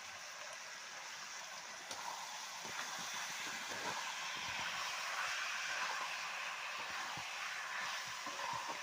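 Chicken pieces sizzling as they fry in oil with spices in a pan, a steady hiss with faint scattered clicks that grows a little louder about two seconds in.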